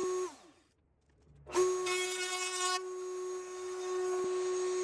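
Electric router mounted in a table, running with a steady high whine. The whine drops away and goes silent for about a second, then comes straight back and runs on as a board is fed past the bit to cut a groove.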